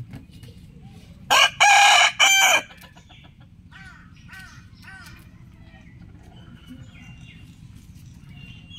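A rooster crowing loudly about a second in, one crow of about a second and a half in three parts. Fainter calls follow, and small birds chirp near the end.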